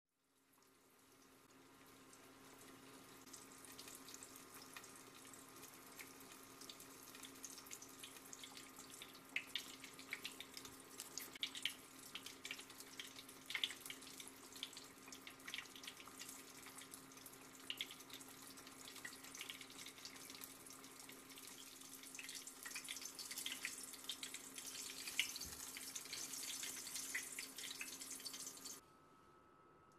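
Panko-breaded saury roll deep-frying in hot oil: a steady sizzle with frequent crackles and pops. It fades in at the start, grows busier and stops suddenly shortly before the end, over a steady low hum.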